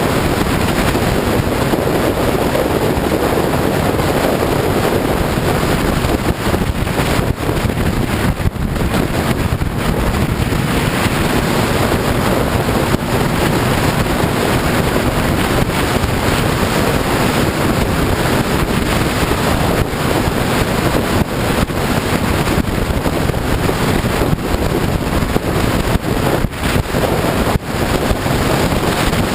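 Steady, loud wind rush buffeting the microphone on a sport motorcycle riding at speed, with engine and road noise underneath and a few brief dips in the rush.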